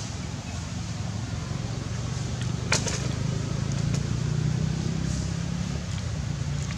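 Low hum of a motor vehicle's engine, swelling and easing off again as it passes, with a single sharp click a little before the three-second mark.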